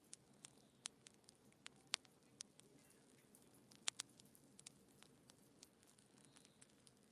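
Wood fire in a fireplace crackling quietly: scattered sharp pops and snaps over a faint low hiss, the two loudest about two and four seconds in.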